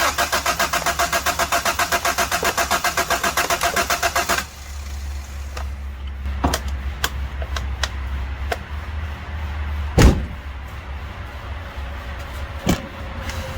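Starter motor cranking a Honda B16A engine in rapid, even pulses for about four and a half seconds, then stopping, without the engine catching; the fuel rail is off for an injector spray test. After that a low steady hum with scattered sharp clicks and one loud thump about ten seconds in.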